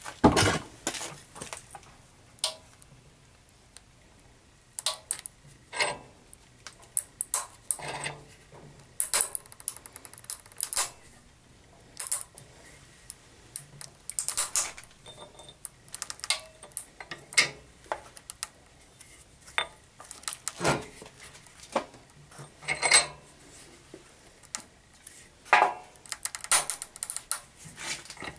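Metal vise being tightened by hand on old hard-plastic action figures: irregular sharp clicks and metallic clinks, a few at a time with short pauses between.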